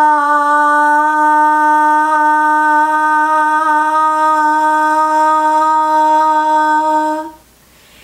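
A woman holds one long sustained 'aa' vowel at a single steady pitch. It is the prolonged phonation of the cough-and-phonate voice therapy exercise, and it stops about seven seconds in.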